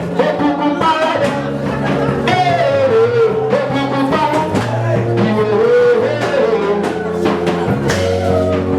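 Worship music: a voice singing a wavering melody over held instrumental chords and a steady bass.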